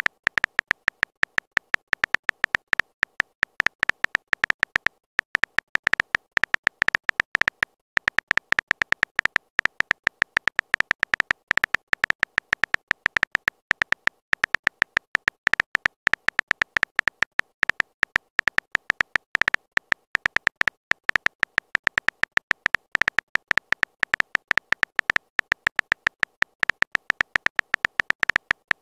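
Keyboard typing sound effect of a texting-story app: short, high clicks in a rapid train, one per letter as a message types itself out, with brief pauses about five and eight seconds in.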